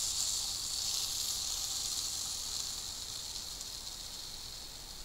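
Water poured on a small campfire, the hot embers hissing loudly as it turns to steam while the fire is put out. The hiss slowly fades.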